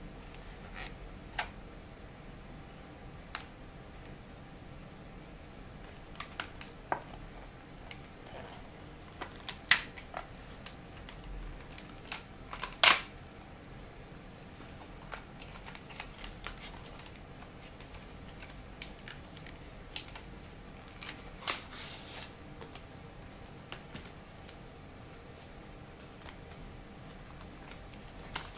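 Small cardboard and plastic packaging being handled and opened on a desk: scattered light clicks and taps, two of them much louder, about ten and thirteen seconds in, over a low steady hiss.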